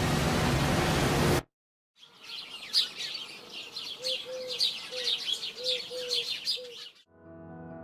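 Morning birdsong: many birds chirping in quick high notes, with a lower call repeated several times. It follows a loud hissing drone with a low hum that cuts off suddenly about a second and a half in, and music comes in near the end.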